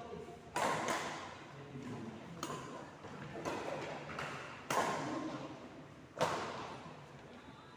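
A ball striking and bouncing on an indoor court, as a series of irregularly spaced sharp thuds that echo through a large hall, about six in eight seconds.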